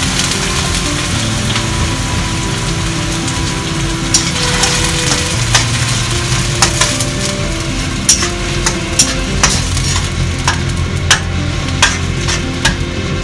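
Tomato and sorghum sauce frying in a wok with a steady sizzle while a wooden spatula stirs it. The spatula knocks and scrapes against the pan, a few sharp taps at first and more often in the second half.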